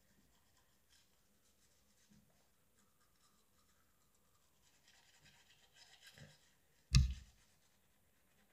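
Faint scrubbing of a toothbrush on teeth, a little louder about five seconds in, then a single sharp thump about seven seconds in, the loudest sound.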